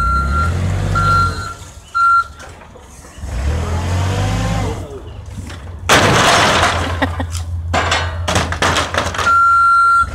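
Yale forklift reverse alarm beeping three times over its running engine. About six seconds in, a tall stack of wooden pallets falls off the raised forks and crashes onto the asphalt, clattering for a few seconds. The reverse alarm starts beeping again near the end.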